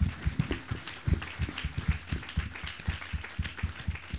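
Applause: many people clapping at once, a dense, uneven patter of hand claps.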